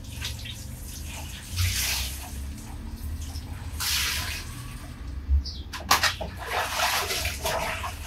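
Laundry being rinsed by hand in a plastic basin: water splashes and streams back into the basin in several bursts as the wet cloth is lifted and dunked. About six seconds in there is a brief sharp knock.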